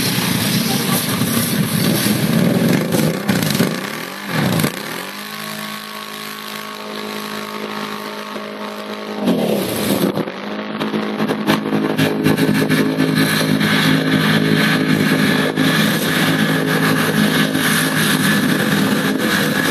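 ATV (quad bike) engines running and revving in deep water, with splashing and churning water. Twice the engine pitch drops sharply and climbs back, about four seconds in and again about nine seconds in.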